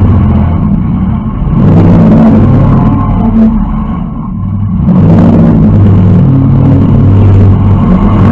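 Demolition derby car's engine, heard from inside the cabin, revving hard. It eases off briefly about a second in and again around the middle, then comes back on.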